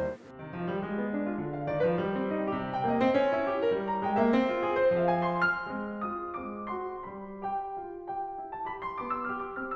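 Background piano music: a melody of single notes over soft chords.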